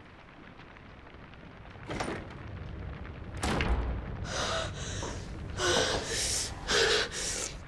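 Two thuds about a second and a half apart, the second with a deep rumble under it, followed by a run of gasping, wheezing breaths.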